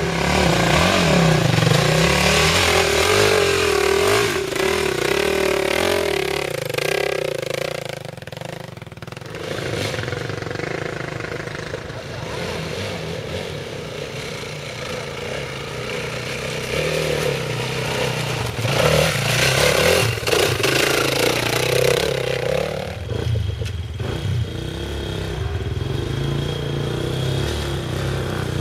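Dirt bike engines revving up and easing off repeatedly under load as the bikes climb a muddy trail, the engine pitch rising and falling.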